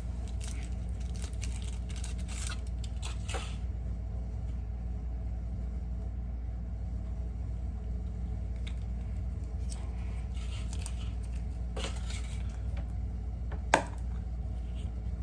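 Kinder Surprise egg being opened by hand: its foil wrapper crinkles and tears for the first few seconds, then small clicks and rustles follow, with one sharp click near the end, over a steady low hum.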